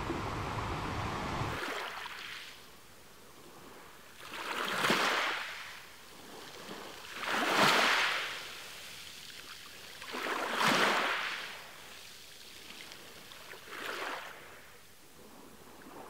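Sea waves: a steady rush of surf and wind for the first two seconds, then it drops off sharply to small waves washing in, rising and falling four times about three seconds apart, the second wash the loudest.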